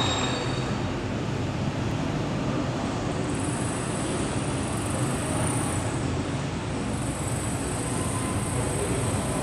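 Steady rumbling ambient noise, even throughout, with no distinct events.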